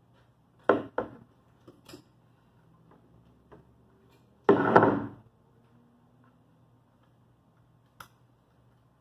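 Plywood boat bulkhead being worked into place against the plywood hull panels: two sharp wooden knocks about a second in, a longer, louder knocking scrape around the middle, and a single click near the end.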